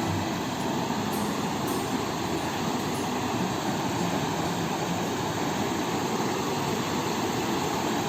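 Waterfall rushing steadily, a continuous even noise of falling water.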